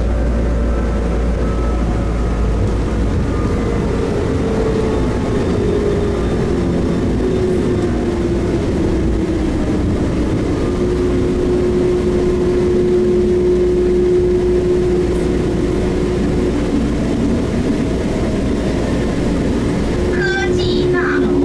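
Running noise of a Bombardier Innovia APM 256 rubber-tyred metro train on the move: a steady noise with a motor whine that falls in pitch and then holds level. A voice starts near the end.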